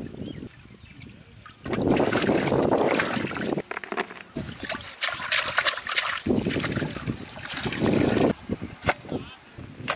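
Water splashing and pouring in a steel pot as vegetables and a bunch of coriander are washed by hand, in loud stretches of a second or two, with a few sharp clicks in between.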